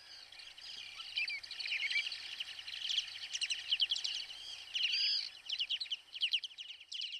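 Birdsong: a dense, continuous run of quick, high chirps and trills, several calls overlapping, over a faint steady hiss.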